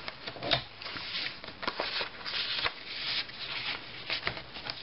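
Paper rustling and sliding as the pages and a card tag of a handmade paper journal are handled, with a few light taps and clicks.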